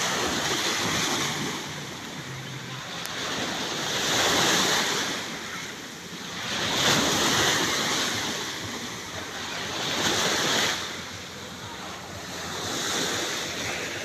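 Sea waves washing in, a noisy surge that swells and falls about every three seconds, with wind on the microphone.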